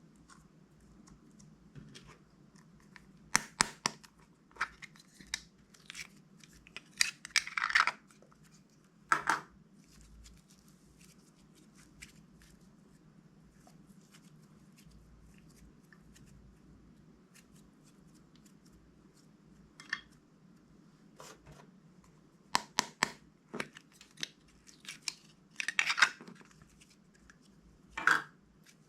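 Scissors snipping and plastic bags being torn open, heard as short crisp bursts in scattered clusters with quiet stretches between.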